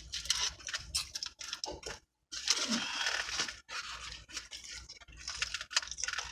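Food being chewed and crunched close to the microphone, in short irregular bouts with a brief break about two seconds in.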